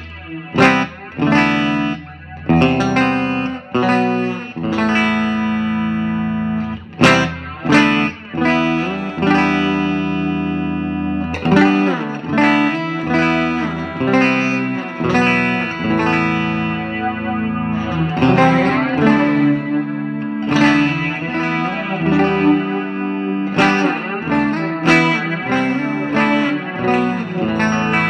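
Electric guitar played through an amplifier and a boutique digital reverb pedal set to reverb with a phase shifter: chords and single notes struck and left to ring out in a wash of reverb.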